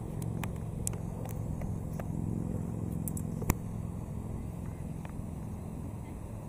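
A steady low rumble, swelling a little midway, with a few light clicks and one sharp knock about three and a half seconds in.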